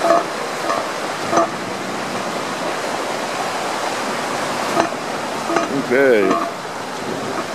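Storm water rushing and churning steadily as it wells up out of a backed-up storm drain and spreads across flooded ground.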